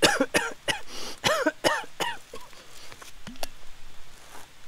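A man coughing in a quick run of about eight short coughs over the first two seconds, then quieter scattered sounds.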